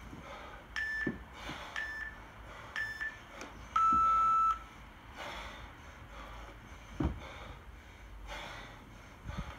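Electronic timer beeping: three short high beeps about a second apart, then one longer, lower beep, the countdown pattern of an interval timer. Under it come a kettlebell lifter's forceful breaths and a few low thumps from the jerk reps.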